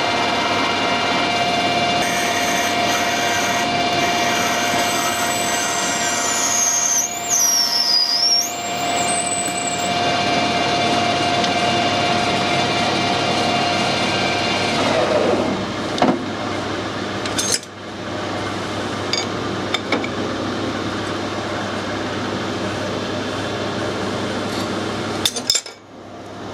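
Lathe running while a small drill cuts a through hole in a brass part, with a steady motor whine and a wavering high squeal from the drill in the cut. About fifteen seconds in the machine winds down and stops, leaving a few sharp clicks over a steady background hiss.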